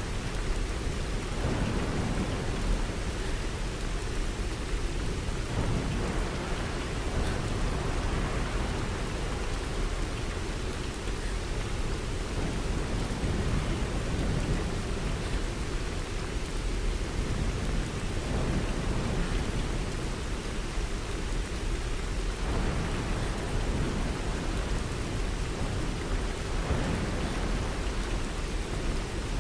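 Steady rain falling: an even, unbroken hiss with a strong low end.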